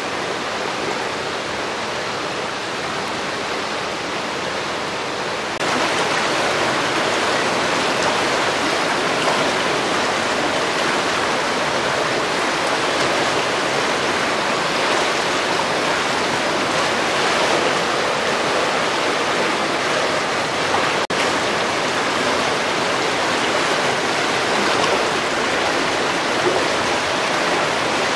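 Greer Spring's outflow rushing fast over rocks in its spring branch: a steady sound of whitewater. It gets louder about six seconds in, with a momentary break near the three-quarter mark.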